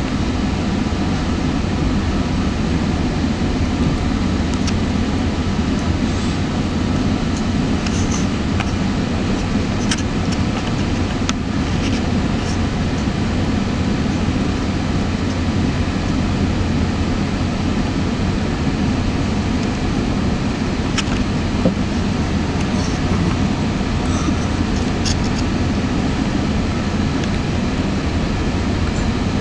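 Cabin noise of a moving GO Transit commuter train: a steady low rumble of the wheels running on the rails, with scattered small clicks and rattles.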